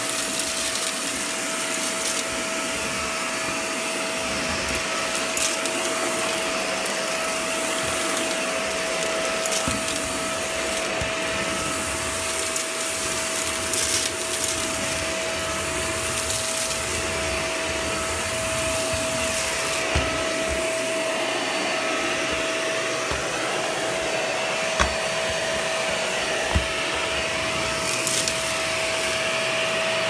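Upright vacuum cleaner running steadily with a constant motor whine as it is pushed over a hard floor, with a few small clicks and knocks along the way.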